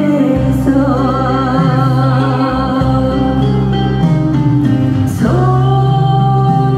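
Woman singing a Korean trot song into a handheld microphone over instrumental accompaniment. She holds notes with a wide vibrato, then slides up into a long held note about five seconds in.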